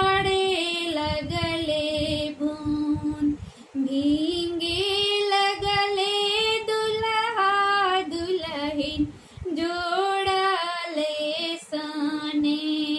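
A woman singing a Bhojpuri shagun wedding folk song solo, drawing out long held notes that waver and slide between phrases, with brief breaths between lines.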